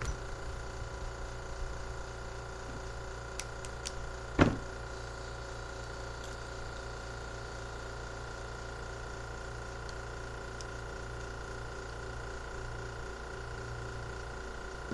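A small metal hand tool picking and prying at a tight part on a four-barrel carburetor: a couple of faint clicks, then one sharp metallic knock with a short ring about four and a half seconds in. A steady background hum runs underneath.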